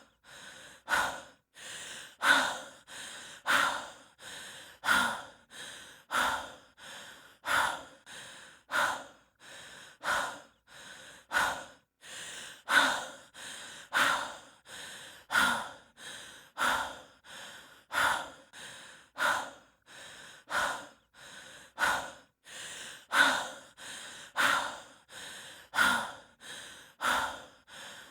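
A person out of breath from trekking, breathing heavily and fast. Loud and softer breaths alternate in a steady rhythm, about one full breath every second and a bit.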